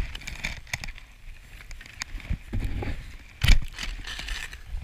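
Skis and ski poles scraping and clicking in deep powder snow, over a low wind rumble on the camera microphone, with one sharp loud knock about three and a half seconds in.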